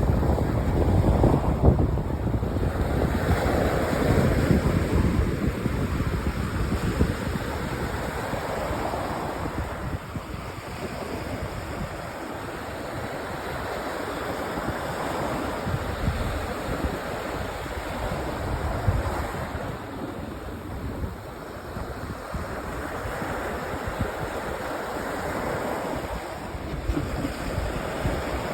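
Sea waves washing onto a sandy beach in slow surges, loudest in the first few seconds, with wind rumbling on the microphone.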